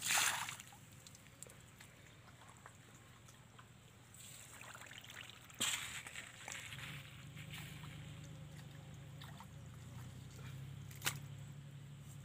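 Bare hands scooping wet mud and shallow water: a splash right at the start, then quieter squelching and dripping, with two sharp slaps, one about halfway and one near the end. A low steady hum comes in about halfway.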